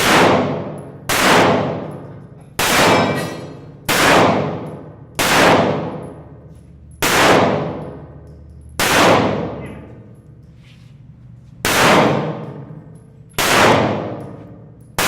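A string of about ten pistol shots fired at steel targets, spaced one to three seconds apart, each with a long ringing decay.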